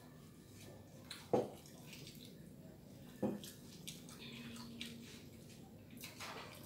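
Eating by hand off a banana leaf: small wet clicks and squishes of fingers working rice and side dishes, and chewing. Two sharp knocks on the table, the first about a second in and louder, the second near the middle.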